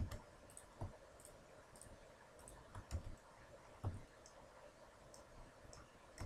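Faint, scattered clicks of computer keyboard keys and a mouse, a handful of separate presses with a few sharper ones spread through.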